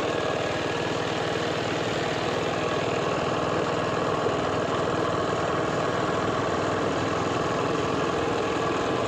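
Small motorcycle engine running steadily while the bike rides along a dirt road, heard from the rider's seat.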